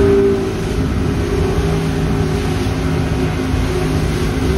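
Speedboat's twin outboard motors running steadily at speed, a continuous engine drone over the rush of wind and churning water; the engine note eases slightly in the middle and strengthens again near the end.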